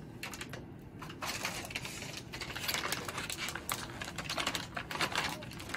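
Plastic dialysate solution bags crinkling and rustling as they are handled and set down on a cart shelf: a dense run of irregular crackles.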